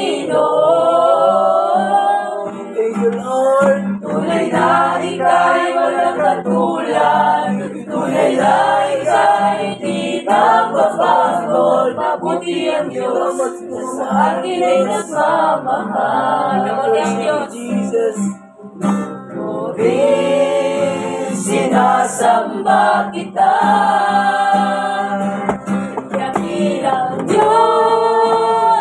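A small group singing a Christian worship song together, with guitar accompaniment underneath; the singing breaks off briefly about two-thirds of the way through.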